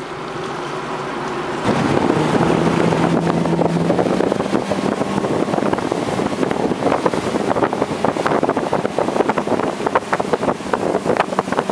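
Sterndrive engine of a 2005 Seaswirl Striper 2101 running under throttle as the boat comes up onto plane, mixed with wind on the microphone. From about seven seconds in, a rapid run of short thumps joins it.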